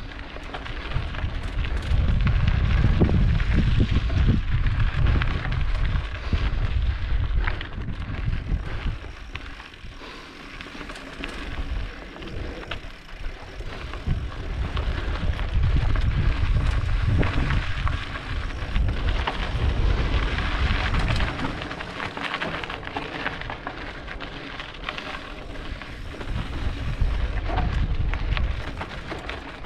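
Wind buffeting the microphone in heavy gusts over the crackle and rattle of mountain bike tyres rolling over a rocky, gravelly trail.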